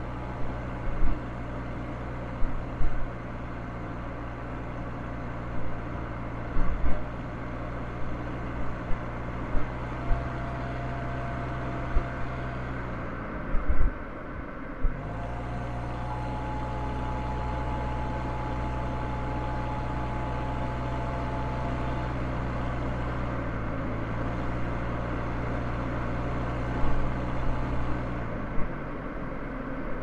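A car driving, with a steady engine hum and road noise and scattered short low thumps. About halfway through, the engine note dips briefly and then picks up again.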